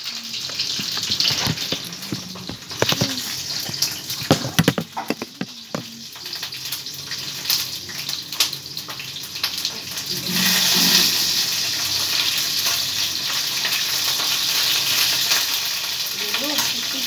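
Scattered clinks and knocks of a utensil against a metal wok (kadai). About ten seconds in, a sudden loud sizzle of food frying in hot oil starts and holds steady.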